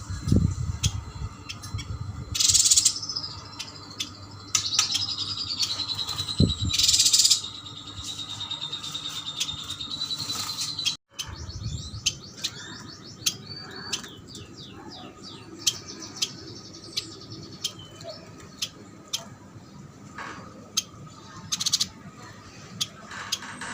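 Yuhinas chirping and calling busily, with one long wavering whistle held for about six seconds from near five seconds in, and a fast run of chirps after the middle. A few short, loud rushing bursts cut across the calls.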